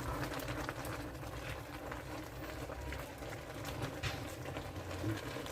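Pancit noodles cooking in the pan on the stove: a steady low hiss and hum with a few faint clicks of a cooking utensil.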